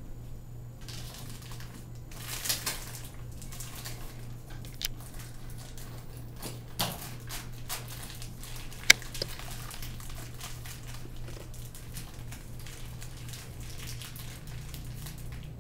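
Small plastic Beyblade parts and their packaging being handled: scattered crinkling and light clicks, with one sharp click about nine seconds in, over a steady low hum.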